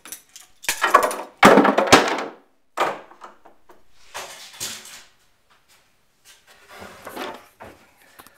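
A clamp being worked onto a wooden cabinet face frame: a string of short knocks, clicks and scraping handling noises, the loudest about one to two seconds in.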